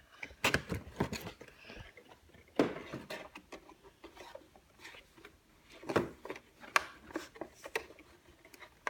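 Handling noises: scattered knocks and taps with soft rubbing, the loudest about two and a half seconds in and about six seconds in.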